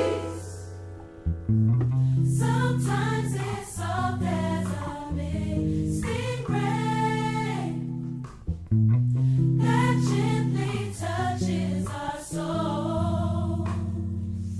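Gospel music: a choir singing over a bass line.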